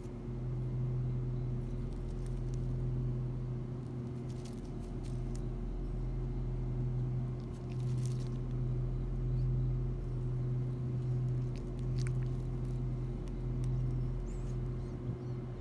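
Orange-and-white cat brushing against the phone: soft scattered scrapes and clicks of fur close to the microphone over a steady low hum.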